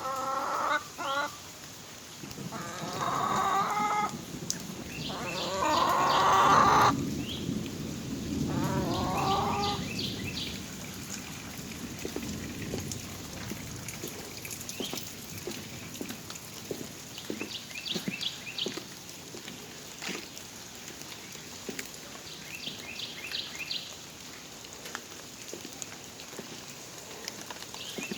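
Animal calls: several pitched calls in the first ten seconds, the loudest and longest about six seconds in, then short clusters of quick high chirps every few seconds.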